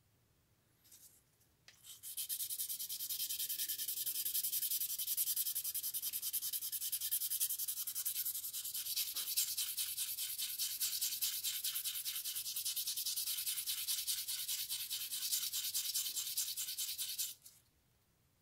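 Brass level plate being rubbed by hand on 1200-grit wet and dry sandpaper: a steady, hissing scrape that starts about two seconds in and stops sharply near the end. The plate face is being lapped flat, with marker ink wearing off the high spots.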